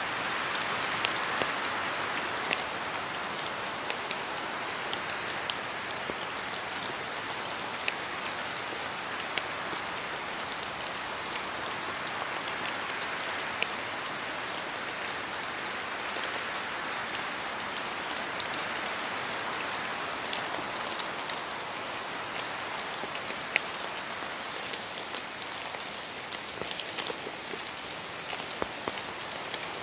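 Steady rain falling in a forest: a constant hiss with frequent sharp ticks of drops striking surfaces.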